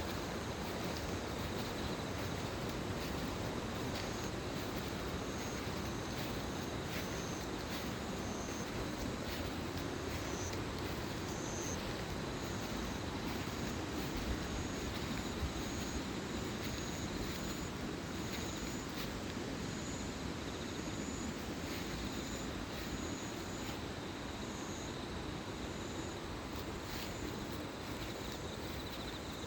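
Mountain stream rushing steadily, with insects chirping high above it about once a second and a thin, steady insect trill.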